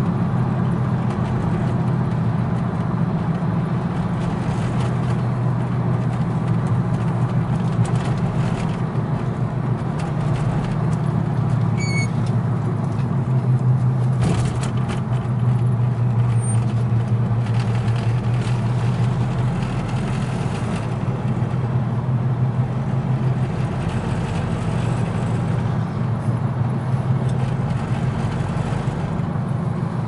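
Steady engine hum and road noise heard from inside a moving vehicle, with a low drone that shifts slightly in pitch about halfway through.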